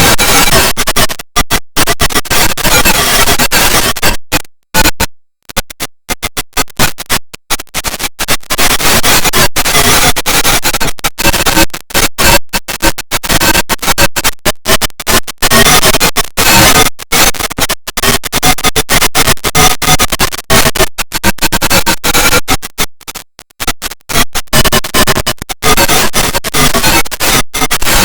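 A recorded sneeze run through heavy Vocodex effects: a loud, harsh electronic noise chopped into rapid stutters with abrupt cut-outs. It drops out briefly about four to five seconds in and again near twenty-three seconds.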